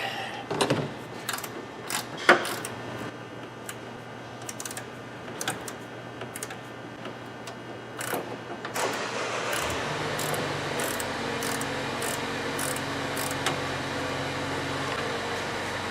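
Ratcheting flex-head wrench clicking in short runs as the strut top-mount nuts are run down. About eight seconds in, a steady hum comes in under the clicks.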